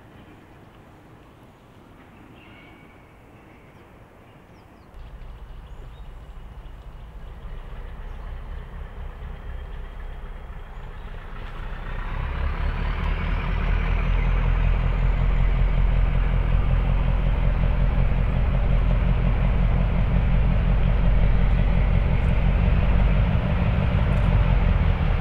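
Diesel locomotive engine, faint at first, opening up about five seconds in and growing much louder from around twelve seconds as the train of coaches gets under way, with a whine rising in pitch as it builds.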